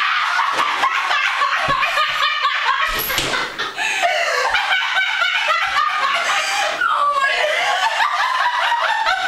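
Young women shrieking and laughing, high-pitched and unbroken, as the girl hidden in the fridge is discovered.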